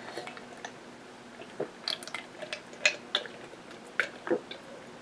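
Close-miked mouth sounds of someone drinking from a glass of an iced drink: soft sips and swallows with a scatter of small clicks.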